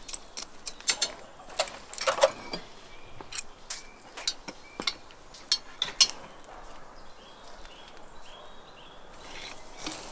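Steel kebab skewers clinking and clicking against each other and the grill's metal rim as they are laid across a charcoal grill, a rapid irregular series of sharp metallic clicks that thins out after about six seconds. A soft steady hiss comes up near the end.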